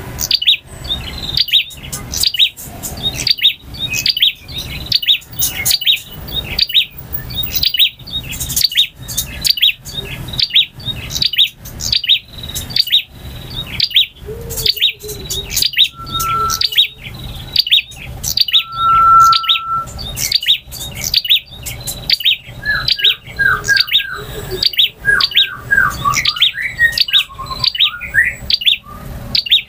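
Male prenjak (bar-winged prinia) singing in a loud, fast series of sharp, evenly repeated chirps. Two short, level whistled notes come around the middle, and a run of lower, quicker notes follows in the last third.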